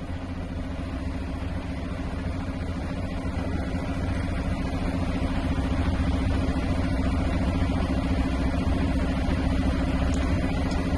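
Dump truck's diesel engine idling: a steady low hum that grows somewhat louder over the first few seconds, then holds.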